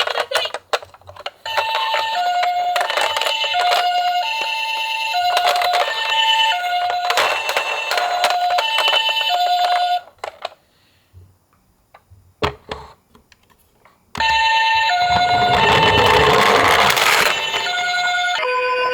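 Toy ambulance's electronic siren playing a two-tone hi-lo wail, a higher and a lower note alternating about every half second. It stops for a few seconds with only a few clicks, then starts again, and for a couple of seconds near the end a rush of noise runs under it.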